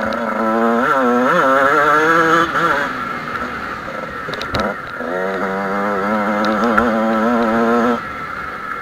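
Two-stroke Kawasaki KX motocross bike engine revving on the throttle, its pitch wavering up and down. It eases off about three seconds in, picks up again about two seconds later, and drops back near the end.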